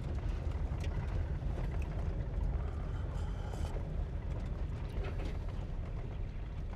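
Steady low road rumble inside a moving van, with a few faint clicks.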